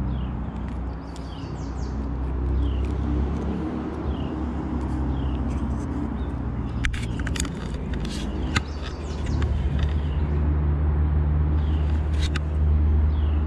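Steady low engine drone from a motor vehicle or boat, growing louder about two thirds of the way through. Over it, short high falling chirps repeat about once a second, and a few sharp clicks come near the middle.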